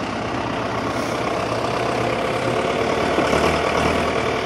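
Farm tractor diesel engines running steadily, the level swelling a little in the second half.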